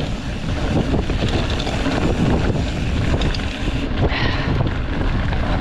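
Wind buffeting the microphone while a mountain bike rattles and knocks over a rocky trail on a descent.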